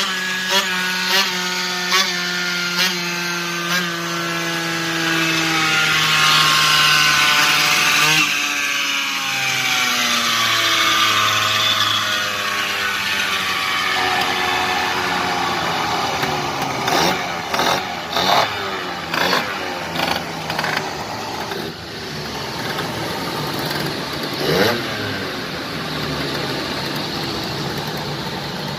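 Tuned two-stroke Yamaha Jog scooter engine on a roller dyno: a full-throttle power run that climbs to its loudest about six to eight seconds in, then the throttle is shut and the revs fall away. After that it runs at low revs with several short throttle blips and one quick rev near the end.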